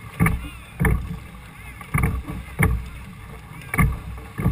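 Rowing strokes of a wooden pilot gig under race pace: the oars knock twice with each stroke, about every two seconds, over water rushing along the hull.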